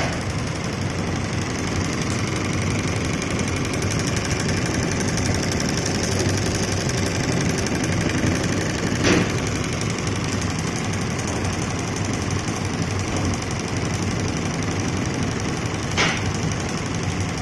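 HSW 12-needle computerised embroidery machine stitching, a steady fast mechanical chatter from the needle and frame drive. Two brief louder clacks break in, about nine seconds in and near the end.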